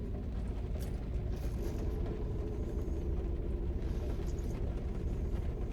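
Steady low rumble and constant hum inside a car cabin, as from the car idling, with a few faint short crackles over it.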